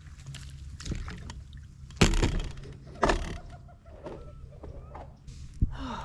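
Water splashing and sloshing around a kayak, with two loud splashes about a second apart and a few smaller knocks.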